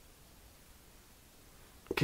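Faint room tone in a pause between spoken sentences, with the narrator's voice starting again right at the end.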